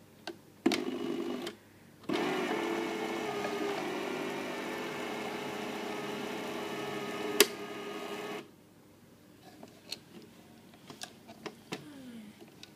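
Fantasia electric countertop blender motor giving a short pulse about a second in, then running steadily for about six seconds as it purées a thick mix of boiled chicken breast, egg and soaked kibble, which loads the motor. It stops abruptly near the end, after a sharp click shortly before the stop.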